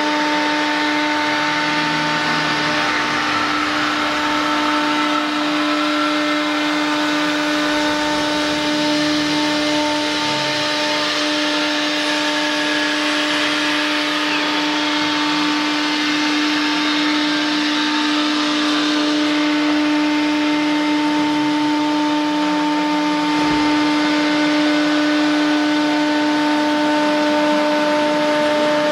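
CNC router spindle running at steady speed: a constant whine over a steady mechanical hiss.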